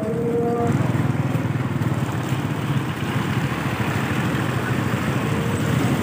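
Motorcycle engine running steadily on the move, a fast low pulsing under rushing wind noise.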